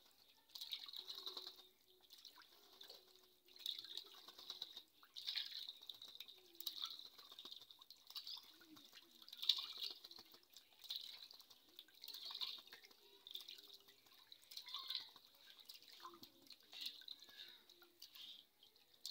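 A watercock bathing in a metal tub of water, splashing in short bursts at irregular intervals, about one every second or two.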